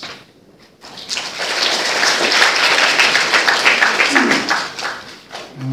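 Audience applauding: the clapping starts about a second in, swells, and dies away near the end.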